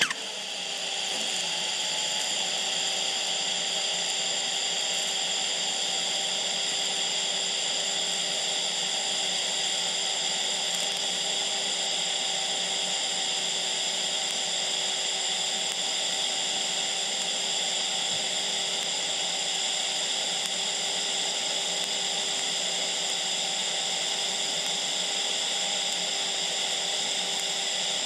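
Stick welder running a scratch-start DC TIG arc at 80 amps under argon shielding gas. The arc is struck right at the start and then burns without a break: a steady hiss with a constant hum of several tones over it.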